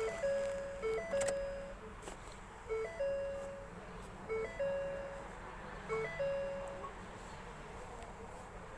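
Repeating electronic chime: a quick pair of short blips followed by a longer held tone, heard five times and stopping about seven seconds in.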